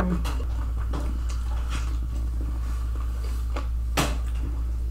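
Close-up chewing and wet mouth clicks while eating, over a steady low hum. About four seconds in, a single sharp clink of a metal spoon against the plate.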